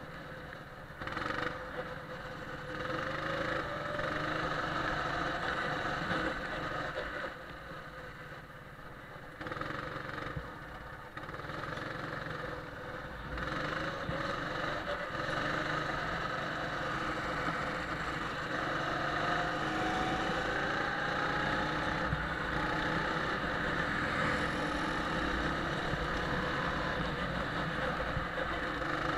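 Go-kart engine heard from on board the kart at speed, its pitch rising under acceleration and falling off as the throttle eases. It drops in loudness twice in the first half, then runs louder and steadier.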